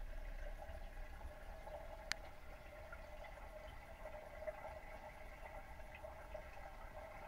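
Faint, muffled underwater pond ambience picked up by a submerged camera: a steady hum over a low rumble and hiss, with one sharp click about two seconds in.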